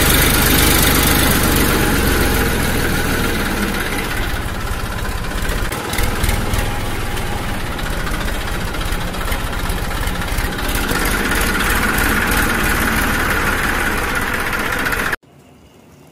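An engine running steadily at idle, then cutting off abruptly near the end.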